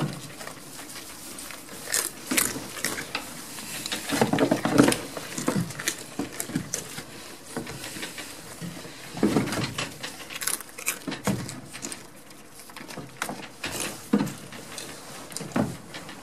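Goats jostling and feeding from a hand at a wooden stall door: irregular rustling, knocks and sharp clicks, loudest in two bursts about four and nine seconds in.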